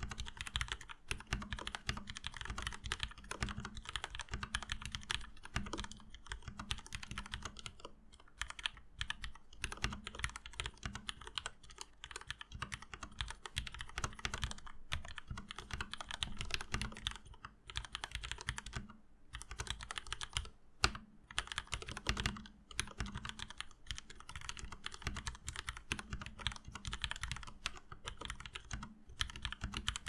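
Continuous typing on a Leopold FC750R mechanical keyboard with lubed Cherry MX Red linear switches, 1.5 mm PBT keycaps and lubed plate-mounted stabilizers: a dense run of key clacks, with a few brief pauses about halfway through.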